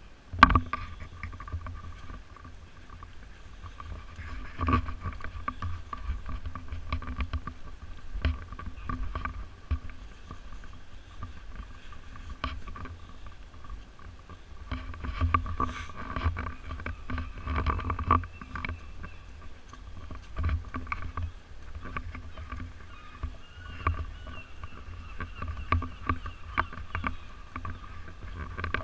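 Low rumble of wind and handling noise on a walking person's action camera, with a loud knock just after the start and scattered knocks after it, over a steady faint hum.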